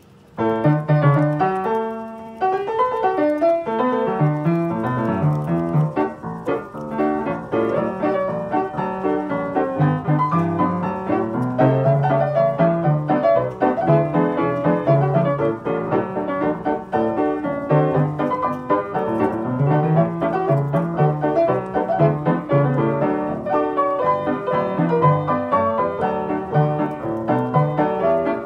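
Background piano music: a continuous run of notes over a low bass line.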